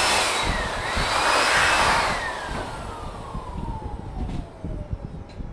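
Corded electric air blower blowing into a repaired Holset turbocharger cartridge, spinning the turbo shaft with a high whine. About two seconds in the blowing eases off and the whine falls steadily over about three seconds as the rotor coasts down freely.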